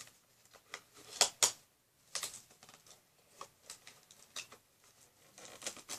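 Irregular light clicks and taps of small hard objects being handled, a few louder ones about a second in and the rest scattered.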